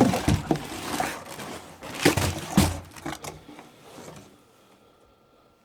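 Handling noise of a new furnace inducer motor being picked up and moved into place: a few sharp knocks with rustling between them, dying away after about three and a half seconds.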